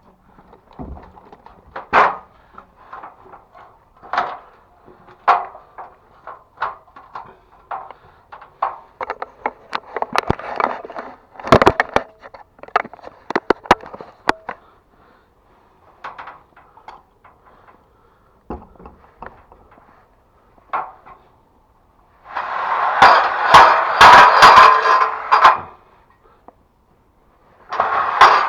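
Irregular metal and wooden clicks, knocks and clatter from hands-on work dismantling a TV aerial, with two longer bouts of dense rattling and scraping near the end.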